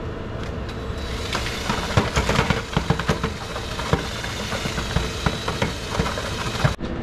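Power drill spinning a tulip-bulb auger converted into a mortar mixer, churning in a plastic bucket, with a steady motor whine. From about two seconds in, the auger knocks irregularly against the bucket. The sound cuts off suddenly near the end.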